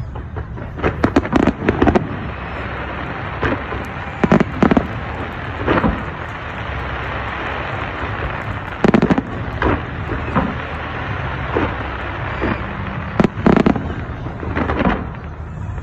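Fireworks display: repeated sharp bangs of bursting shells, several coming in quick clusters, over a continuous low rumble and crackle.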